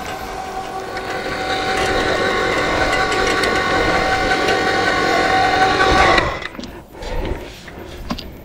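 A small electric winch's motor and gears whining steadily as it hauls a hand cultivator through the soil, then stopping suddenly about six seconds in; a few scrapes and clicks follow.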